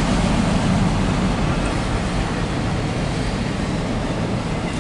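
Steady rumble and rolling noise of a CSX intermodal/autorack freight train's cars going past on the track.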